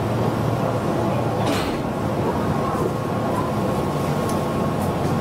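Meitetsu 6800 series electric train running along the line, heard from inside the front car: a steady rumble of wheels and running gear, with a thin steady tone and a few faint clicks.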